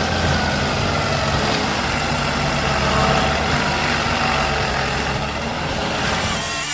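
Stump grinder's engine running steadily at speed, a low, even drone with a noisy grinding haze over it. Music comes in near the end.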